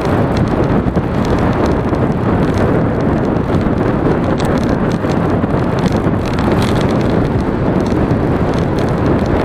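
Steady wind rush buffeting an action camera's microphone during a road ride, mixed with road and vehicle running noise; an even, unbroken rumble.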